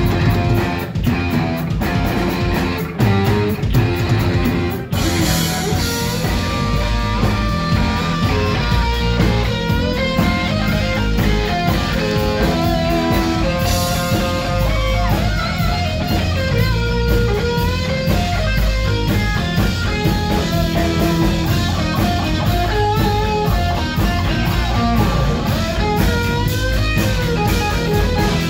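Live heavy metal band playing an instrumental passage: distorted electric guitar, bass guitar and drums. About five seconds in, the fast-struck opening part breaks off and a lead guitar line with bending notes carries on over the bass and drums.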